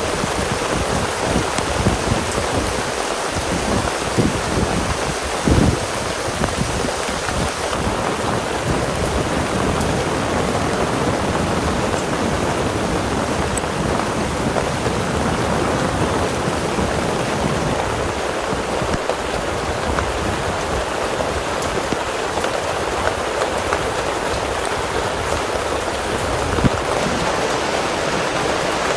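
Heavy rain falling steadily, with an irregular low rumbling underneath that comes and goes.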